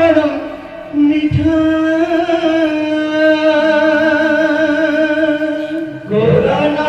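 Devotional kirtan singing: a voice holds one long, steady note for about five seconds, with a low drum stroke near the start. Near the end a new phrase rises in pitch.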